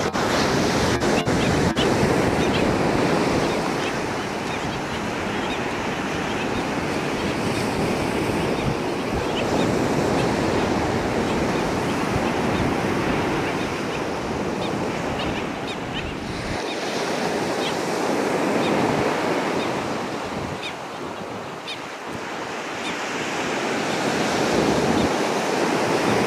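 Ocean surf washing onto the beach, swelling and easing every several seconds, with wind buffeting the microphone.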